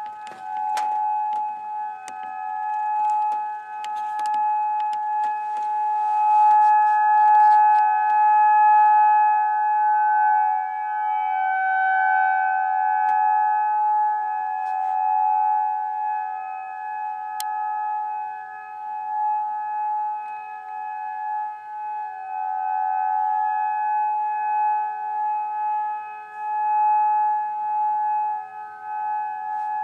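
Outdoor tornado warning sirens, a Federal Signal Modulator and a Federal Signal 2001, sounding a steady alert tone: two close, high, held pitches that keep swelling and fading in loudness as the rotating horns sweep round. Scattered clicks come in over the first several seconds.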